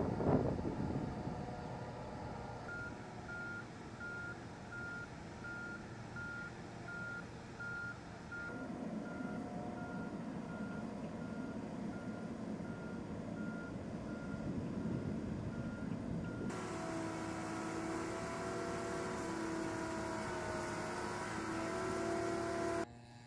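Motion-warning alarm on a wheeled gantry transporter beeping steadily, about two beeps a second, over the low running of the transporter's engine. A brief rush of noise comes at the start, and later the beeping gives way to a steady hum with two held tones.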